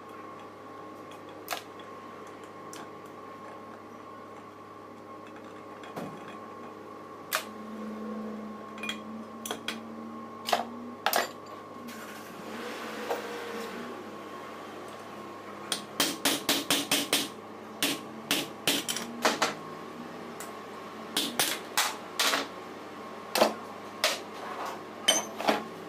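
Sharp metallic taps and clinks from hand tools working a 24-volt alternator clamped in a bench vise, scattered at first, then in quick runs of several taps a second over the second half. A steady hum runs underneath.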